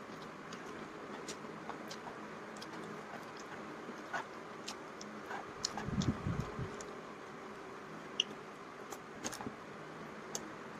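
A person eating hot dry noodles with chopsticks: quiet chewing with scattered small clicks over a steady low hiss, and a louder muffled bump about six seconds in.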